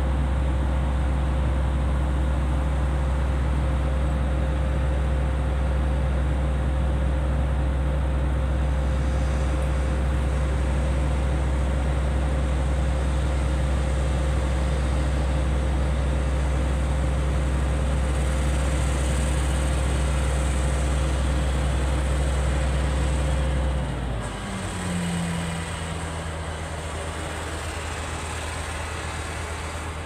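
Heavy diesel engine of earthmoving equipment running at a steady speed. About three-quarters of the way through, it drops abruptly to a lower, quieter drone, with a brief rising note just after.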